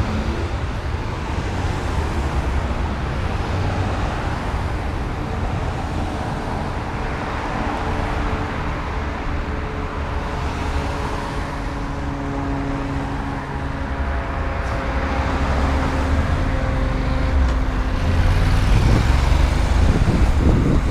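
Road traffic noise, cars passing with a steady engine hum. Near the end it grows louder, with wind rumble on the camera microphone as the bicycle picks up speed.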